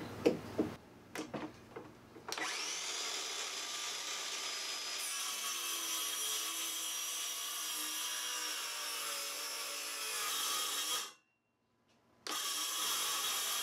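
DeWalt circular saw ripping along an oak slab against a clamp-on straight edge, a steady whining cut that starts about two seconds in after a few faint knocks. It breaks off for about a second near the end and then carries on.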